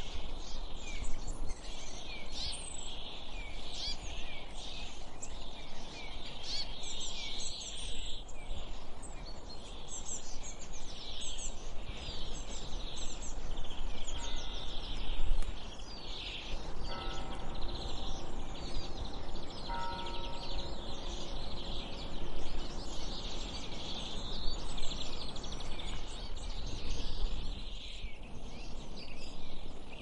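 Many small birds chirping and twittering at once in a dense chorus over a steady low rumble, with a few short held tones about midway.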